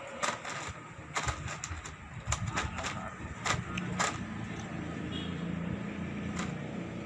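Steady outdoor background noise with a low hum, broken by scattered sharp clicks and knocks in the first four seconds or so.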